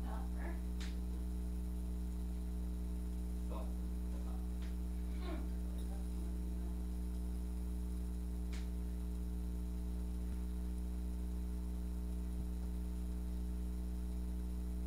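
Steady low electrical mains hum, with a few faint short sounds in the first six seconds and a single click about eight and a half seconds in.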